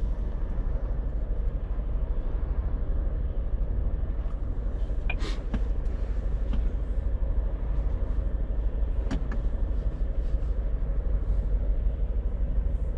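Scania truck's engine running under way, heard from inside the cab as a steady low drone with road noise. Two brief knocks sound, about five and nine seconds in.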